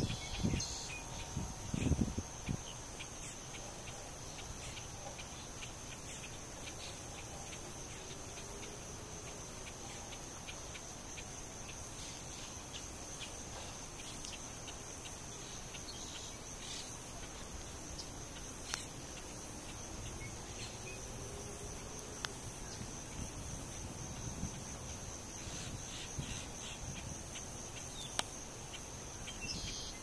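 Insects trilling in a steady high-pitched drone, with a few low thumps in the first couple of seconds and scattered faint clicks.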